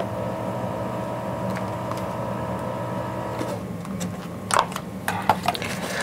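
A steady hum with several held tones that cuts off about three and a half seconds in. It is followed by paper rustling and crinkling as the pages of a printed manual are turned and tissue paper is handled.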